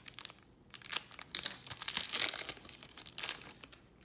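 Trading cards being handled and flipped through: crinkling and rustling in many short bursts, thickest around the middle.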